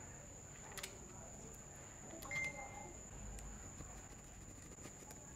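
Faint handling clicks from a screwdriver and small screws working into an old electric drill's aluminium gear housing, with a brief sharper clatter and short squeak about halfway through.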